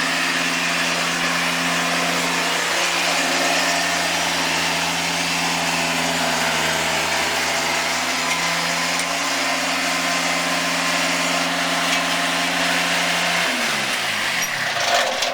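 Kubota zero-turn mower engine running steadily while the mower is driven up into the truck, then switched off about 13 seconds in, its note falling as it spins down.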